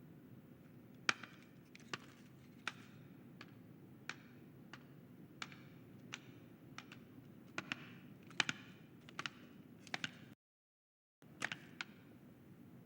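Animated-film Foley: a series of light, sharp taps and clicks at an irregular pace over a low steady hum. The sound cuts out completely for under a second near the end.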